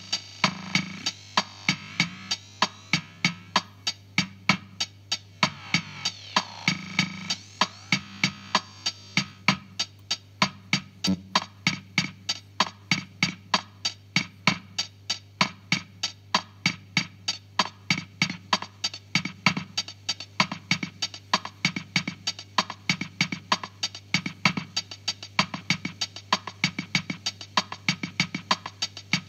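Casio CZ-230S drum machine playing a bossa nova rhythm through a Vermona DEG 500 digital delay, a dense even run of percussion hits with echoes. A few synth tones sound in the first several seconds, over a steady low hum.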